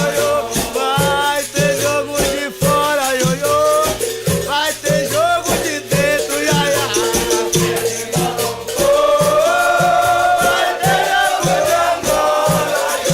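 Capoeira roda music: voices singing over a steady drumbeat of about two strokes a second, with a shaken rattle.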